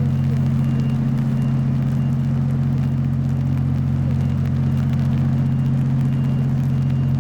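Steady low engine rumble with a deep, unchanging hum, holding constant pitch and level throughout.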